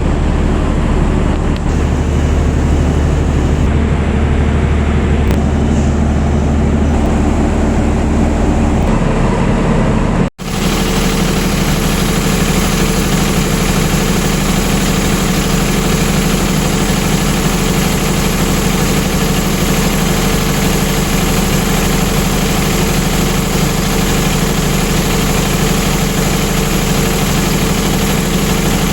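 Canopied generator set running steadily under about 75% load, a loud continuous engine drone. About ten seconds in the sound drops out for an instant, and afterwards the drone is steadier in tone, with a thin high whine over it.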